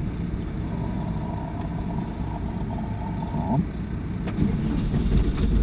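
VW T3 Syncro van's engine idling cold, with the cold-start accelerator engaged, heard from inside the cab. A faint steady whine runs through the first few seconds and cuts off about three and a half seconds in.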